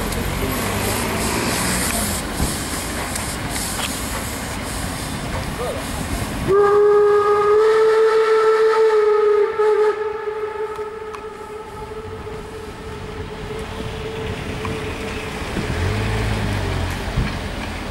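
Steam locomotive's whistle sounding one long steady blast about six seconds in, loudest for about three seconds, then held more softly until near the end, over a steady hiss of steam.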